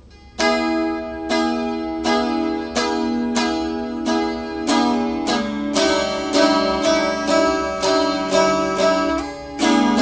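Music: plucked or strummed guitar chords come in about half a second in after a faint held tone and go on at a steady pace.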